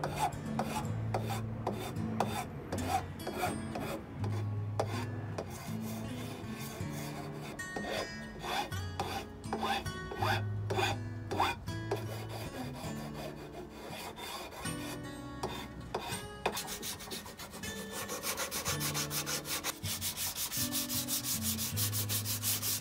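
Steel hand file rasping across the edge of a wooden plane body in repeated strokes, rounding the edge over. About two-thirds of the way through, the file gives way to faster strokes of sandpaper rubbing the wood. Soft background music with a slow bass line runs underneath.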